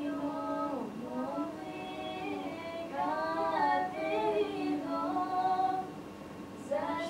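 A woman singing a slow melody unaccompanied, holding long notes that bend and glide in pitch.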